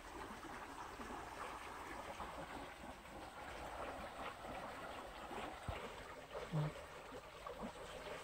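Steady rushing and trickling of a shallow stream flowing over stones, with a brief low sound about two-thirds of the way through.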